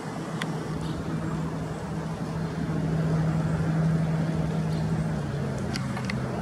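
A motor running with a steady hum that steps down to a lower pitch about five seconds in, over a background hiss; a few faint clicks.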